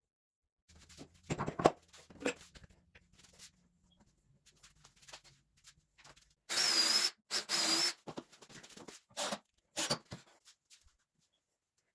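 Workshop handling sounds: scattered knocks and clicks of tools and parts. A little past the middle come two short bursts, about half a second each, of a small power tool starting and stopping, such as a drill.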